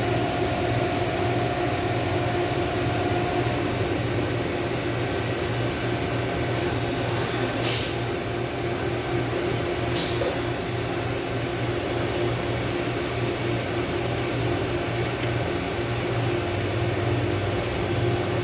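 Steady mechanical hum with a constant drone, broken by two short clicks a couple of seconds apart.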